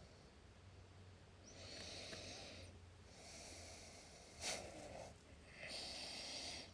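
A person breathing audibly through the nose close to the microphone, about three slow breaths, with one sharp click about two-thirds of the way through.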